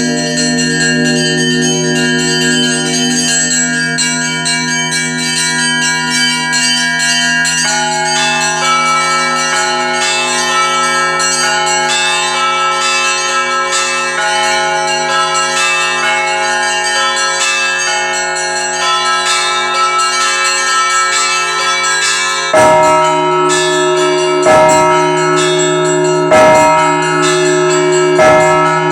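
Russian Orthodox church bells rung in a festive Easter peal: many bells of different pitches chime densely and without pause. Near the end a heavy, deeper bell joins with strong strokes about every two seconds.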